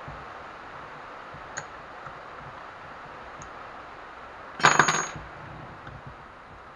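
A steel drill chuck key set down on the workbench with a brief metallic clatter and ring about two-thirds of the way through, after a few faint clicks of the key working the drill chuck.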